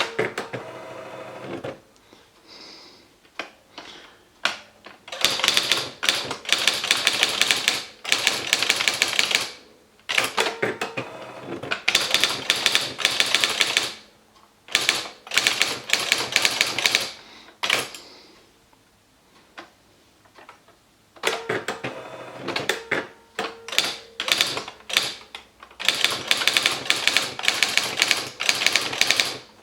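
Esselte 80 electric typewriter typing: bursts of rapid strikes lasting several seconds each, separated by short pauses with a few scattered clicks.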